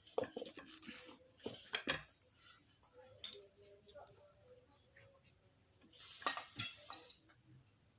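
Irregular light clicks, taps and clinks of small hard objects being handled, with louder knocks about a second and a half in, at about three seconds, and around six to six and a half seconds.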